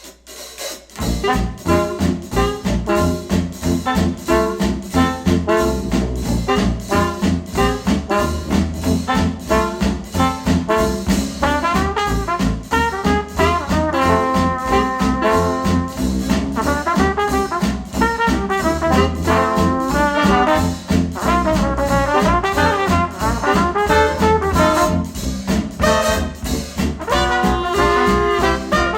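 Retro-style jazz band tune with trombone and trumpet over a steady beat, played back through KEF LS50 Meta bookshelf speakers. The music starts about a second in, after a brief gap.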